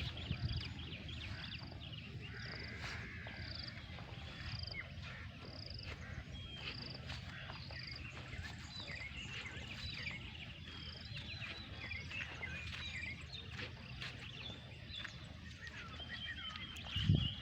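Many birds chirping and calling together, full of short quick notes, with one bird repeating a short high note about once a second. Underneath runs a low steady rumble.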